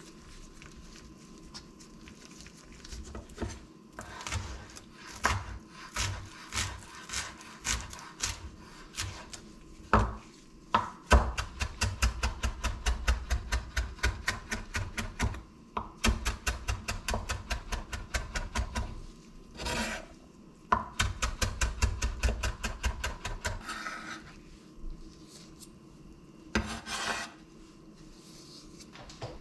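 Chef's knife chopping fresh dill on a bamboo cutting board: single separate cuts at first, then long bursts of fast, even chopping at several strokes a second through the middle, thinning out to a few last strokes.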